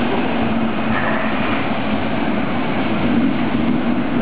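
Metro train pulling out of a station and gathering speed, heard from inside the leading car: a steady running noise of wheels on rail with a low motor hum beneath it.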